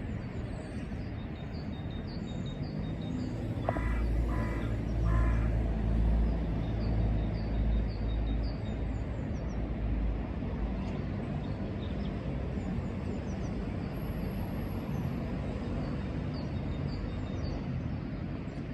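Outdoor park ambience: a low rumble swells about four seconds in and fades by ten, with three harsh bird calls, like caws, around four to five seconds in and faint small-bird chirps throughout.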